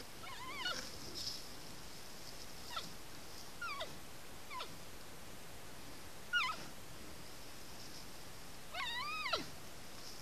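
Giant pandas calling: about six short, high calls that bend up and down in pitch, the loudest about six seconds in and the longest near the end sliding down at its close.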